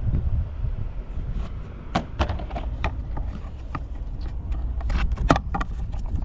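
Honda Motocompo's small air-cooled two-stroke single running with a low rumble, which the seller calls free of abnormal noise. Irregular clicks and knocks come over it from about a second in, the sharpest a little after five seconds.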